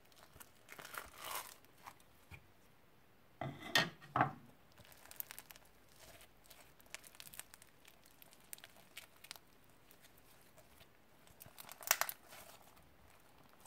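Dried slime with sprinkles and straw bits being peeled, stretched and squeezed by hand: irregular crackling and tearing, loudest about four seconds in and again near the end, with small crackles in between.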